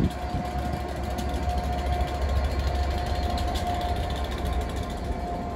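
EWS Class 67 diesel-electric locomotive, with its two-stroke V12 diesel, running past: a steady low engine rumble with a steady whine above it.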